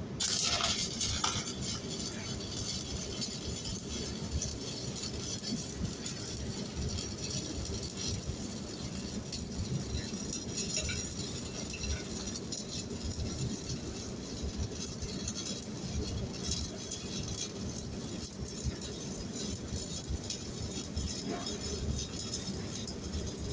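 Electric welding arc struck right at the start and then held steadily, a continuous dense crackle with no let-up.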